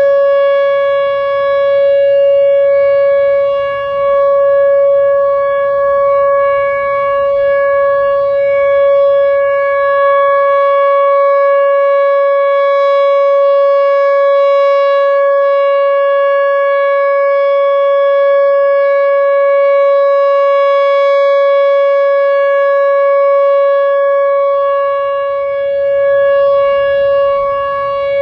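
Whelen Vortex R4 outdoor warning siren sounding its full alert in a scheduled test: a loud, steady, unbroken tone that holds one pitch, with slight dips in loudness.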